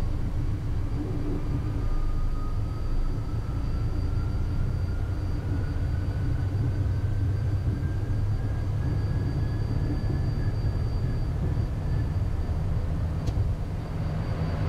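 Cockpit noise of a Beechcraft Premier 1A business jet on its takeoff roll: a steady, loud low rumble from the twin Williams FJ44 turbofans at takeoff power and the wheels on the runway, with a faint whine slowly rising in pitch as the jet gathers speed.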